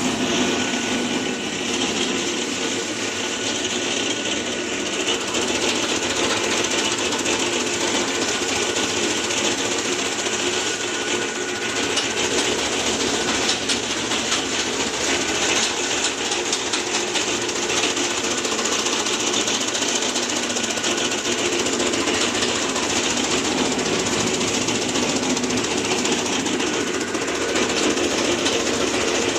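Geared, electric-motor chaff cutter running steadily while chopping green fodder, its blades giving a fast, even clatter over the hum of the drive.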